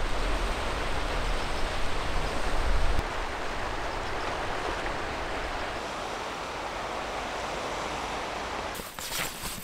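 Steady wind and sea-surf noise, with a low wind rumble on the microphone for the first three seconds that stops abruptly. Near the end, a patter of clicks and rustling comes in.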